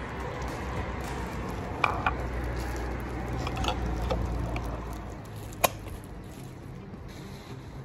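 Plastic-gloved hands rubbing and handling a cleaning cloth on a stone window sill, with soft crinkling, a few small clicks and one sharp click about two-thirds through. A low rumble underneath dies away about five seconds in.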